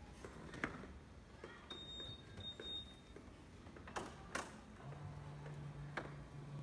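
Faint outdoor ambience with a few scattered sharp clicks, a thin high beep-like tone for about a second, and a steady low hum that starts near the end.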